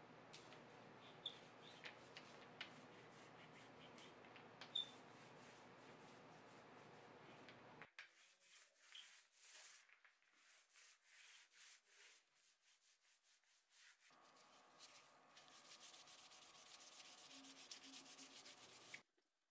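Soft rubbing and rolling of a paint roller spreading paint over a wooden drawer front, in a steady run of strokes that becomes an irregular series of short strokes about 8 seconds in, with a few light clicks.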